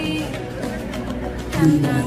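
Background music: a song with a steady bass line and a singing voice that comes in louder near the end.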